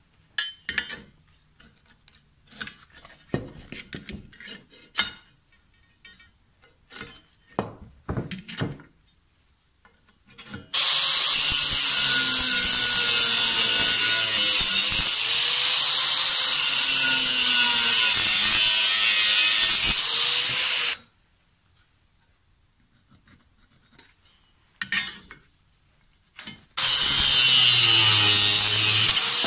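A few scattered knocks, then an angle grinder with a cut-off disc cutting through rusty steel tube: a loud steady grinding for about ten seconds that stops suddenly. After a quiet pause with a couple more knocks, the grinder starts cutting again near the end.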